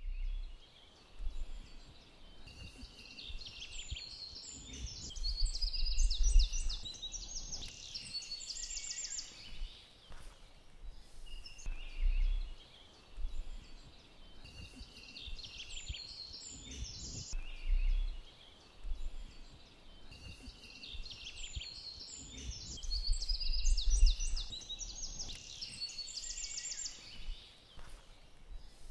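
Songbirds singing in bursts of quick trilled and chirping phrases that come back every several seconds, over a low rumble.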